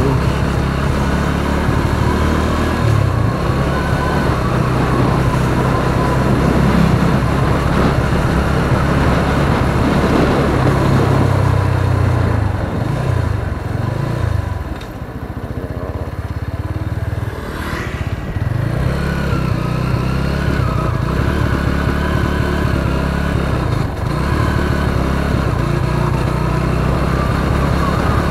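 Motorcycle engine running under way, with steady wind and road noise. About halfway through the engine note drops as the bike slows, then picks up again.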